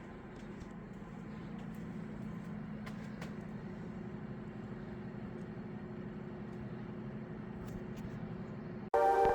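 Steady low machine hum that swells slightly over the first couple of seconds and then holds. Loud electronic music cuts in suddenly near the end.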